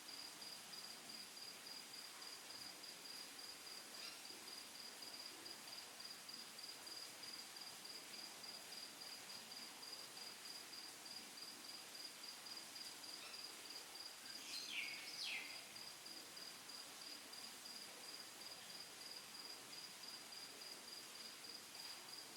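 An insect chirping steadily in a continuous high, finely pulsed trill. About two-thirds of the way through, two short high chirps falling in pitch stand out as the loudest sounds.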